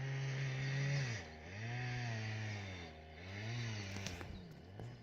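A small engine revving up and down over and over, its pitch rising and falling in swells about every second and a half and dropping away near the end.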